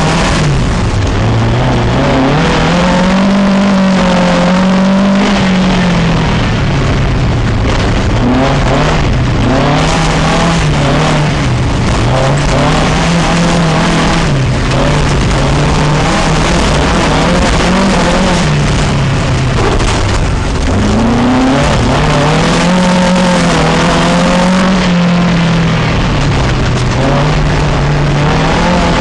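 Matra Djet race car's engine heard from inside the car, revving up and easing off again every few seconds as it is driven hard round the track, over loud, steady road and wind noise.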